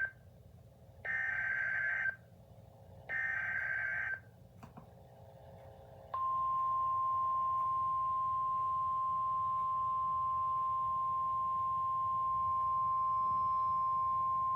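Emergency Alert System SAME header: two buzzy bursts of digital data tones, each about a second long, encoding the Severe Thunderstorm Warning. About six seconds in, a single steady alert tone starts and holds, the National Weather Service attention signal that precedes the spoken warning.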